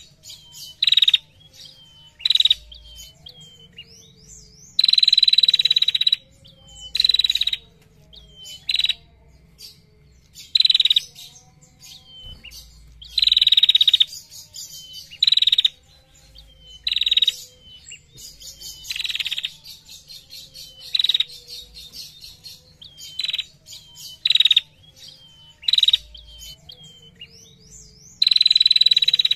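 Female ashy tailorbird calling repeatedly: about twenty loud, rapid high trills, each from a fraction of a second to over a second long, with the longest about five seconds in and again near the end. Short, thin rising chirps fall between the trills.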